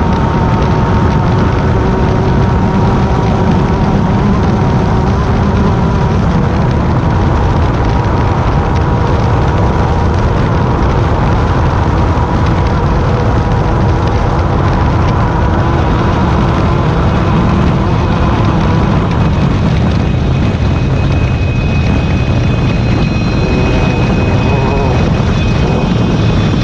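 Class 10 off-road race car driving hard: loud, steady engine and road noise without a break.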